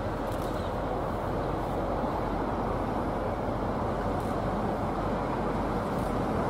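Queensland Rail 2400 class Clyde diesel locomotives running as they approach at slow speed, a steady engine noise growing slightly louder.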